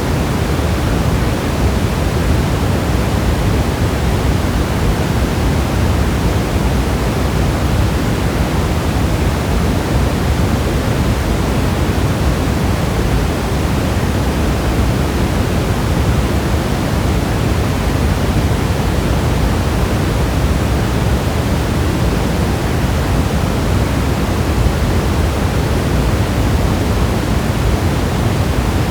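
Steady heavy rain: a dense, even rushing hiss with a full low end and no separate drops or pauses.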